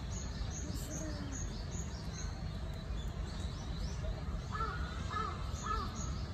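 A crow cawing three times, about half a second apart, in short harsh calls. Before them comes a quick series of high thin chirps from a small bird, over a steady low background rumble.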